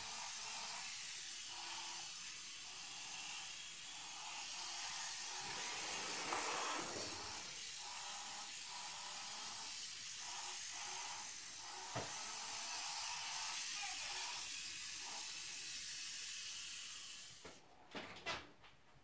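Small app-controlled toy race car's electric motor whirring steadily as it laps the track, stopping shortly before the end. A few sharp clicks follow.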